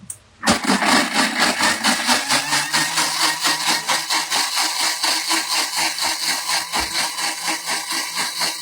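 Thermomix blender motor running at high speed, blending soaked cashews and water into plant-based milk. It starts about half a second in with a fast, regular pulsing.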